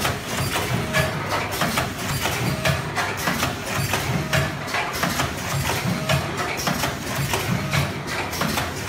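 C21DX ultrasonic pyramid tea bag packing machine running alongside other packing machines: a steady, regular mechanical clatter of clicks and knocks over a low machine hum.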